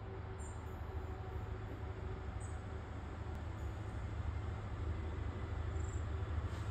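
Caledonian Sleeper train hauled by diesel locomotives approaching: a low, steady rumble that slowly grows louder as it nears.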